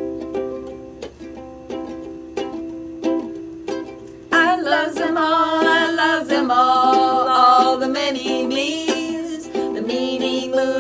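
Ukulele strumming slow single chords, about one every two-thirds of a second, then two women's voices start singing together over it about four seconds in.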